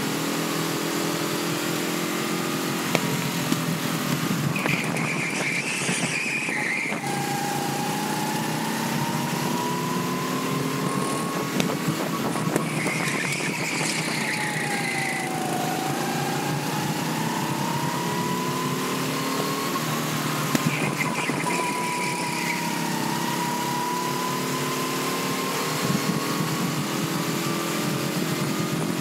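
Go-kart engine running at racing speed, its pitch rising along the straights and dipping when slowing for corners, under steady wind noise. Three times, brief higher-pitched sounds cut in over the engine.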